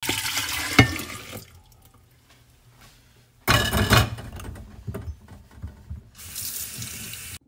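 Freshly made grapefruit juice being poured and splashing into a glass container, in three separate pours, with a sharp clink just under a second in.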